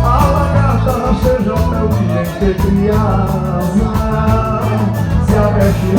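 Live forró band playing with a singing voice over a steady, even beat.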